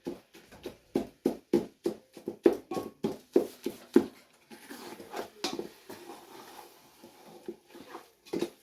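Cooked cowpea greens being pounded and mashed in a pot to soften them: quick regular strikes, about three a second for the first four seconds, then slower and fainter strokes, with a couple of sharper hits near the end.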